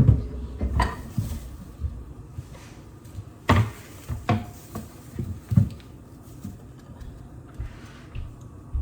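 Irregular knocks and clatters of kitchen work during food preparation, the sharpest about three and a half and five and a half seconds in.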